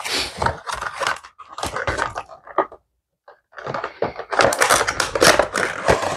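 Handling of a Funko Pop's cardboard box and its clear plastic window insert: the flap is pulled open and the plastic tray slid out, with dense crinkling, crackling and scraping. There is a short pause of about half a second near the middle.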